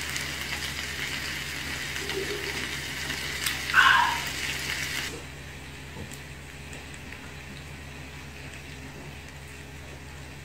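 Beer being gulped from a glass, with a short loud voiced sound about four seconds in. The background hiss drops away suddenly about five seconds in, leaving faint clicks from eating.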